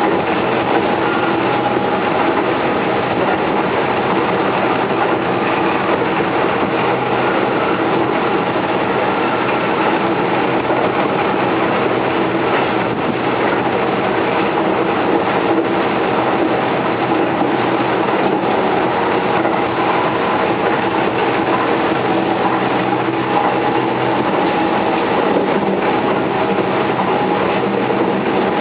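Keihan 3000 series electric train running at a steady speed: an even rumble of wheels on rail, with a few steady humming tones.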